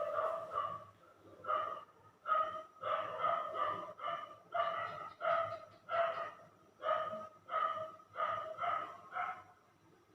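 A street dog barking over and over, about fifteen short barks at a steady pace with a brief pause about a second in; the barking stops shortly before the end.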